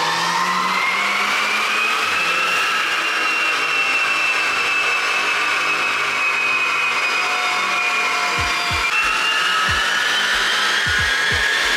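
VW Golf GTI Mk5 with a 2.0 TFSI turbo engine and Borla cat-back exhaust running on a chassis dynamometer. A high whine climbs in pitch over the first few seconds, holds, and steps up again about nine seconds in, with low thumps near the end.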